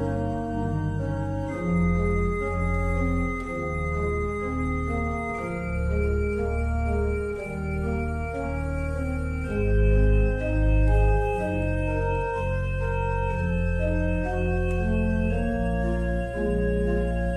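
Organ music: slow, held chords over a deep bass, the notes changing every second or two.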